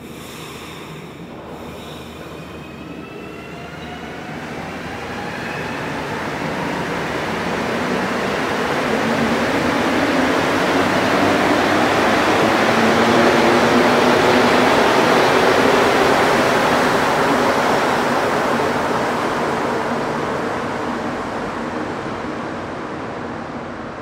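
Montréal Métro Azur (MPM-10) rubber-tyred train pulling out of the station. Its traction motors give a whine that rises in pitch as it speeds up over the first several seconds. The rushing rumble then swells to its loudest about halfway through and fades as the train leaves.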